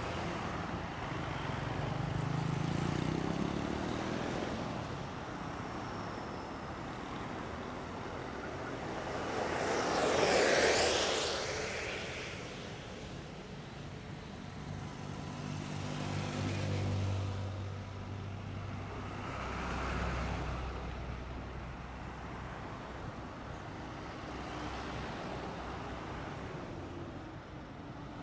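Busy road traffic of motorcycles, cars and trucks going by, with a loud vehicle passing close about ten seconds in. Low engine hum from heavier vehicles follows.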